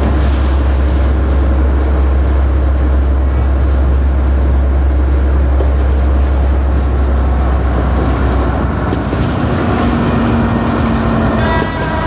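Steady rumble and clatter of a moving train, heard from on board, with a strong deep drone that drops away about eight and a half seconds in. A brief pitched whine comes near the end.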